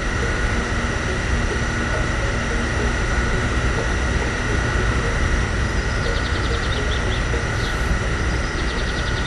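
Petrol pump dispensing fuel: its motor runs steadily, a continuous hum and rushing sound with a steady high whine over it.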